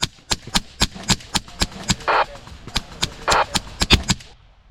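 Airsoft gun firing a rapid string of shots, about four a second, stopping shortly before the end, with two short rasping noises mixed in partway through.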